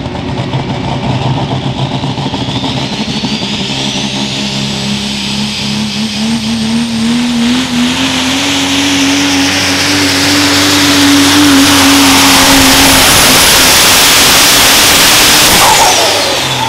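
Turbocharged diesel engine of a '97 Dodge pickup pulling truck at full throttle under sled load. The engine note climbs and the turbo whistle rises high and holds while the sound builds. Near the end the throttle comes off and the engine and whistle fall away.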